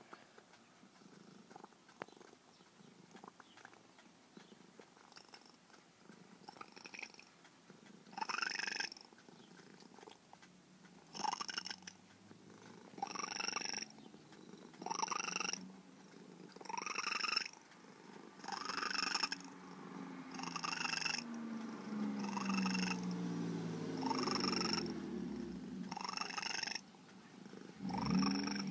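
Old black cat purring while being stroked, faint at first and louder from about eight seconds in, swelling in a steady rhythm about every couple of seconds with each breath.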